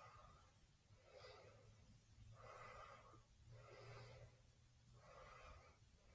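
Very faint breathing close to the microphone: about five soft breaths, one every second or so, over a low hum.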